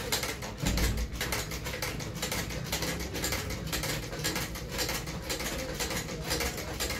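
Cobbler's cylinder-arm patcher sewing machine stitching a leather boot: a fast, steady mechanical clatter of needle strokes, several a second, with a brief low thump about a second in.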